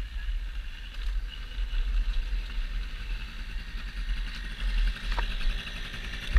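Dirt bike engine running steadily at low revs.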